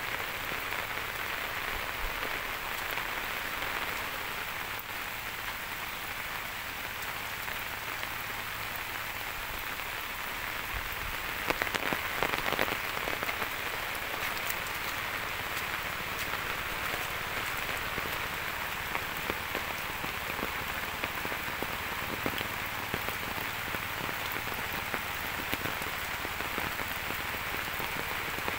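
Steady rain falling on tree leaves and bare ground: an even hiss with scattered louder drops, heaviest about twelve seconds in.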